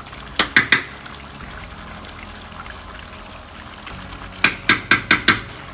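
A metal spoon clinks against a metal bowl and pot while ground dried pepper is spooned into the soup. There are three sharp clinks a little under a second in, then a quick run of about five taps near the end.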